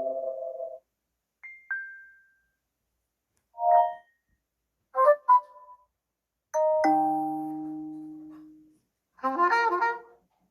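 Samsung Galaxy Tab A 8.4 notification tones played one after another: five short, different chimes and blips with brief silences between them, the longest a ringing chime that dies away over about two seconds.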